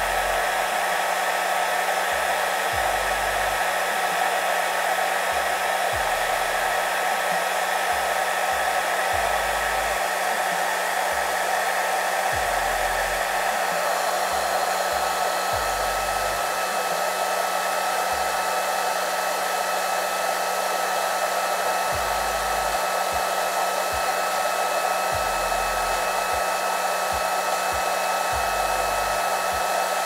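Handheld hair dryer running steadily with its nozzle attachment off, blowing into a plastic bottle. An even rush of air with a thin steady whine.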